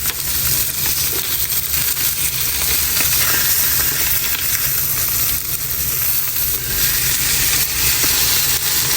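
Salmon frying in a pan: a steady sizzling hiss, with a low, even rumble underneath.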